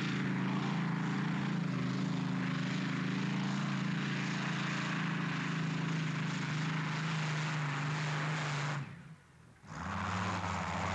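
Rolls-Royce Griffon V12 aero engine of a pulling tractor running at full power as it drags the weight sled. Its note climbs at the start, then slowly drops in pitch as it pulls. The sound cuts out sharply about nine seconds in and comes back about a second later.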